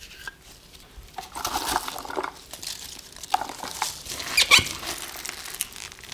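Gloved hands tossing and squeezing salted pepper leaves with wet chili-paste seasoning in a large bowl, a rustling, squelching mix of small wet sounds. There is a sharp click about four and a half seconds in.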